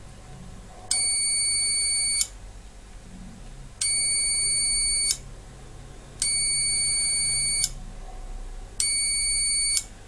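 Digital multimeter's continuity beeper sounding four times, each a steady high-pitched beep about a second long with short gaps between. Each beep signals continuity: a closed circuit of near-zero resistance across the probes.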